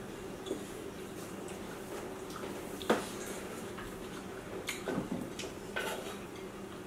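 Scattered light clicks and taps of chopsticks and dishes at a meal table, the sharpest about three seconds in, over a steady low hum.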